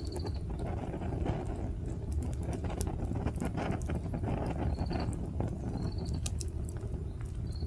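Wood fire crackling, with sharp irregular pops over a steady low rumble.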